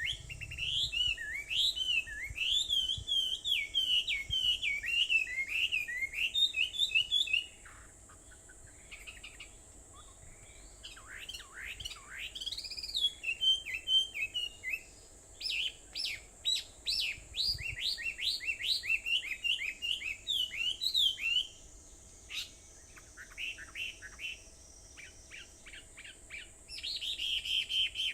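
Wild birds singing: quick, varied chirping notes that slide up and down, dense for the first several seconds, then in bursts and a fast run of repeated notes, fainter near the end. A steady high-pitched hiss runs underneath.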